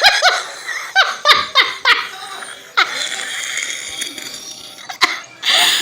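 A woman laughing helplessly at her own hiccups: short bursts of laughter, then a long breathy stretch of wheezing laughter, and a sharp catch of breath near the end.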